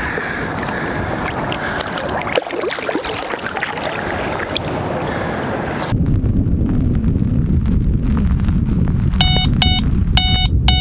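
Wind rushing over the microphone, which turns into a deep buffeting rumble about six seconds in. Near the end, an electronic carp bite alarm gives several quick bursts of high beeps, the signal of a take on the rod.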